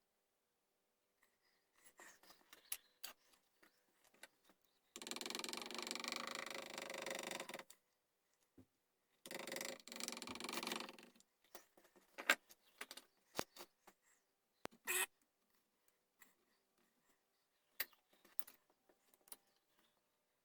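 Hand work on a wooden gunstock: scattered small taps and clicks of tools on wood, broken by two steady stretches of abrasive scraping or grinding noise, the first about five seconds in and lasting under three seconds, the second a little shorter.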